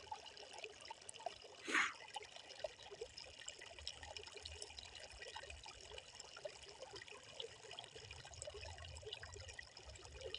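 Small trickle of water seeping out of muddy ground, a faint steady trickling with tiny drips. A short louder noise about two seconds in.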